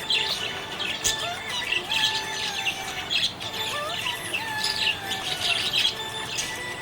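Budgie chirping and warbling: a quick, continuous run of short bright chirps mixed with rising and falling whistled notes.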